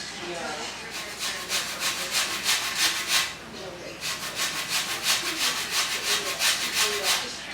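A lemon being zested on a grater: quick rasping strokes, about four or five a second, in two runs with a short pause between.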